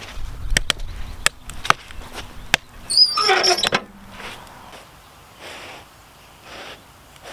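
Wood fire crackling with sharp pops in the open firebox of a cast-iron wood-fired oven, then the iron firebox door squealing on its hinges for about a second as it is swung shut, ending in a clack of the latch. A few soft, short sounds follow.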